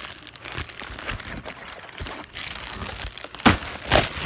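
Packaging being opened by hand: steady crinkling and rustling, with two louder crackles near the end.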